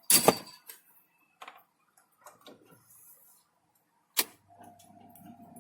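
A few sharp clicks and knocks from handling hardware on a workbench, the loudest just after the start and another about four seconds in, with small ticks between; a faint steady hum begins near the end.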